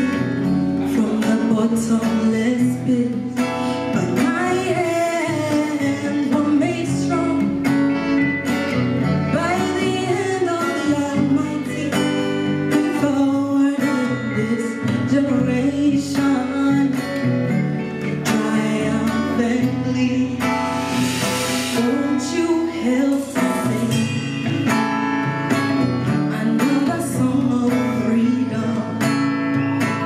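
Live band playing a song: a woman sings lead over guitars, keyboard and drums.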